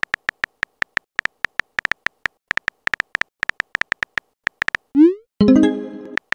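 Quick, irregular keyboard tap clicks from a texting app as a message is typed. About five seconds in comes a short rising swoosh as the message is sent, then a brief pitched alert tone that fades out within a second.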